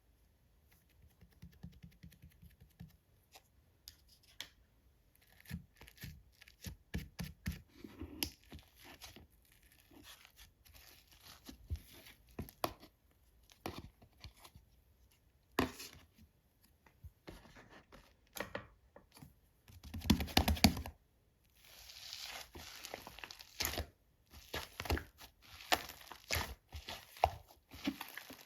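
Slime being kneaded, stretched and mixed by hand: irregular sticky clicks, pops and crackling tears, with a louder squishing burst about two-thirds of the way through.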